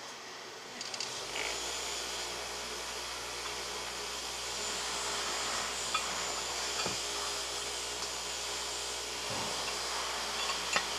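Steady whir of an electric motor-driven machine with a low hum, coming on about a second in and running on. Under it, the faint rub of three-strand rope being worked by hand and a few light clicks.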